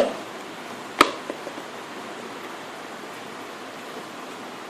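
Cardboard box being opened by hand: two sharp clicks, one right at the start and one about a second in, followed by a steady background hiss.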